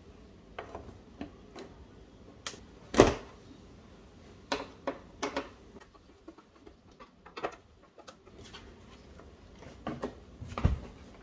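Scattered knocks and clicks of a Polaris Sportsman 570's hard plastic front storage lid and its aluminum repair hinges being handled and fitted onto the machine, with the loudest knock about three seconds in.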